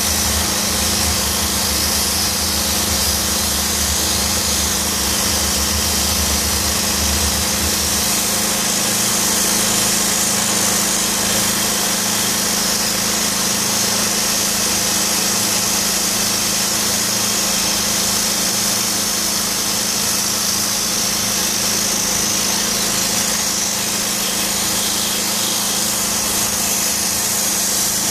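DOFF superheated-steam cleaner running: a steady machine hum under a high, constant hiss of steam jetting from the lance onto stone and brick. A deeper rumble underneath drops away about eight seconds in.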